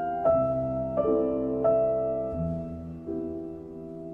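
Slow background piano music: single notes or chords struck about every 0.7 seconds, each left to ring and fade before the next.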